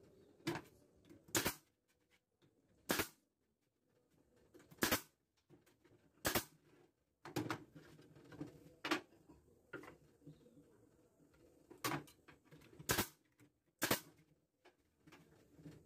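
Sharp clacks and knocks, about nine of them irregularly spaced a second or two apart, from assembling a wooden wine rack on a workbench.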